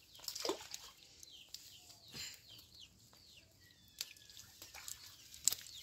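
Soft rustling and scattered light clicks of a nylon cast net being handled as fish are picked from it, with birds chirping in the background in a few short falling chirps.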